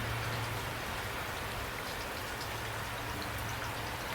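Steady rain falling, an even hiss with faint scattered drops pattering on a surface.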